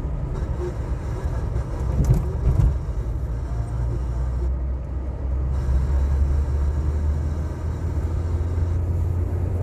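A car driving, with a steady low engine and road rumble. There are a couple of brief knocks about two seconds in, and the rumble grows stronger about halfway through.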